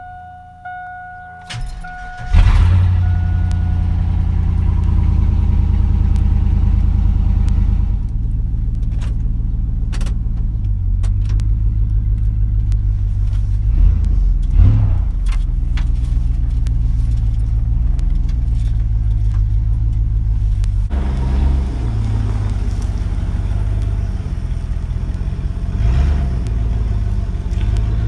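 A pickup's warning chime dings, then the Chevrolet pickup's engine cranks and catches about two seconds in. It settles into a loud idle, blipped briefly about halfway through and again near the end.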